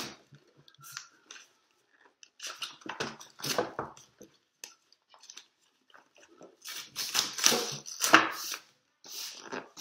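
Cardboard board-game box being opened and handled, with its wrapping crinkling: two bursts of rustling and scraping with small knocks, about three seconds in and again around seven to eight seconds, the second louder.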